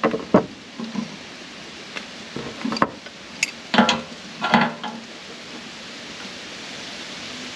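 Adjustable wrench clinking on the nut of a new fuel shutoff valve as it is tightened onto a generator's gas tank: several sharp metal clicks with a short ring over the first five seconds.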